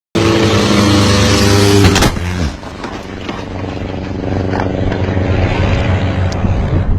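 Aircraft engine running loud and close, with a sharp crack about two seconds in. After the crack the engine drops to a quieter, steady drone.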